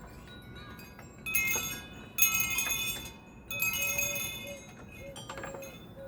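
Metal wind chimes ringing in three clusters of bright, overlapping notes that die away between strikes.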